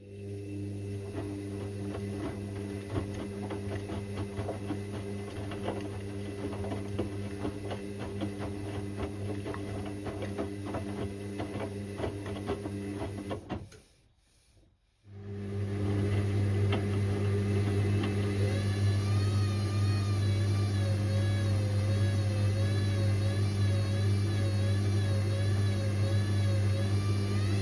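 Indesit IWC6165 washing machine running mid-cycle with a steady motor hum. The hum stops for about a second and a half near the middle, then starts again a little louder with a wavering whine, as when the drum pauses and reverses during the wash.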